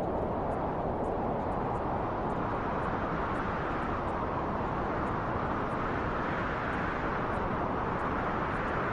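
Steady rushing wind, swelling a little stronger partway through.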